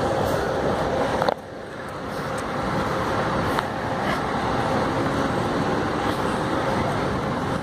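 Busy city street traffic: a steady mix of car and bus engines and road noise, which drops abruptly just over a second in and then builds up again.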